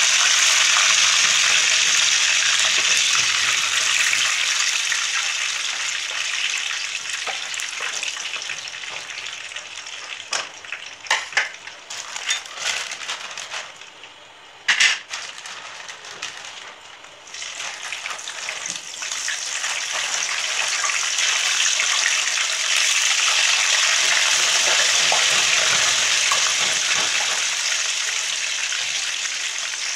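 Hot oil sizzling in a frying pan as samosas and then spring rolls fry. The sizzle dies down about a third of the way in while the fried samosas are lifted out with a slotted spoon, with a few sharp knocks and clinks, then swells again about halfway through as the rolls go into the oil.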